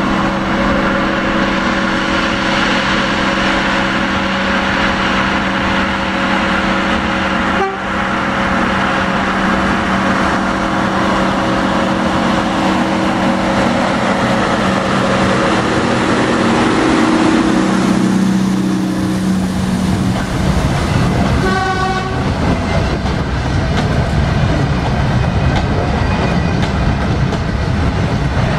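Industrial diesel shunting locomotive approaching with its engine running at a steady note that grows louder as it passes close, with a brief horn toot soon after. Coal hopper wagons then rumble and clatter past over the rail joints.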